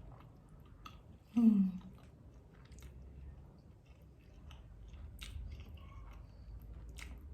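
Close-miked chewing of a McDonald's chicken nugget, with small wet clicks and crunches throughout. About one and a half seconds in comes a brief, loud vocal sound falling in pitch.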